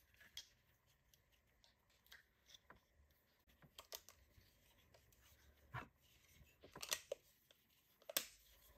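Faint, scattered clicks and taps of a plastic handheld circuit breaker finder receiver being handled and its parts pressed together, with a few sharper plastic clicks in the second half.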